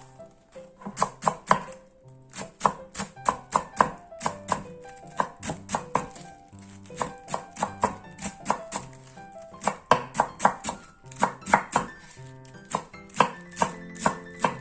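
Knife chopping vegetables on a cutting board in quick runs of strokes, about four or five a second, with short pauses between runs.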